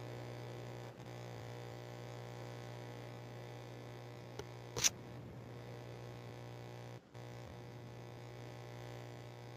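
Steady low electrical hum, with one sharp click about five seconds in, just after a fainter tick.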